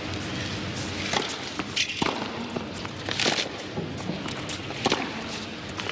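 Tennis ball hit back and forth in a rally on a hard court: about four sharp racquet strikes, a second or so apart.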